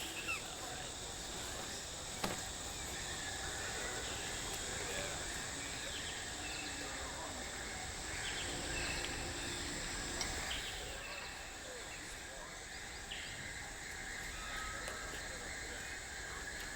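Outdoor wilderness ambience: a steady high-pitched insect drone with scattered short bird chirps and calls, and a single sharp click about two seconds in.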